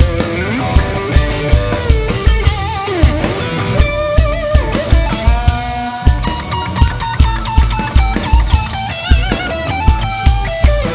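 Live rock band: an electric guitar plays a lead solo with string bends and vibrato over a steady drum kit beat.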